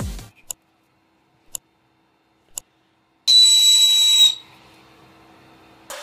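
Three short ticks a second apart, then a 3D-printed air horn sounding one high-pitched blast of about a second with a hiss of air, cutting off sharply.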